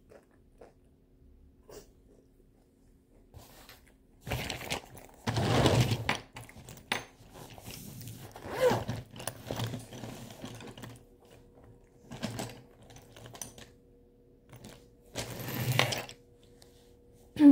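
Rummaging through a fabric pencil case: irregular bursts of rustling and clattering with a few knocks, starting about four seconds in.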